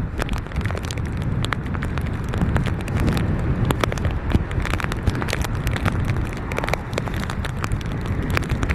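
Strong hurricane wind buffeting the microphone: a dense, loud low rumble with many sharp crackles and ticks.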